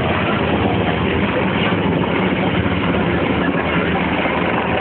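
Military helicopter flying low overhead, its rotor and engine noise loud and steady.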